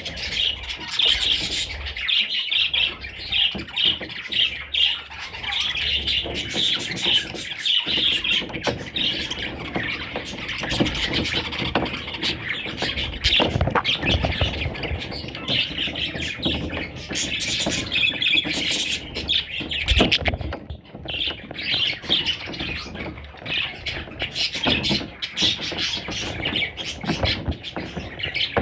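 Budgerigars chattering and squawking without pause, many rapid high chirps overlapping.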